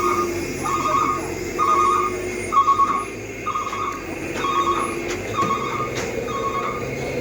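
A vehicle's reversing alarm beeping steadily, about one beep a second, over the low hum of a running engine.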